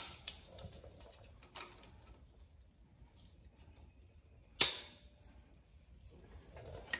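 A few sharp metal clicks from locking pliers being clamped, snapped open and repositioned on a broken stud in a cast-iron cylinder head, the loudest about four and a half seconds in. The stud is being worked out with the pliers after heating.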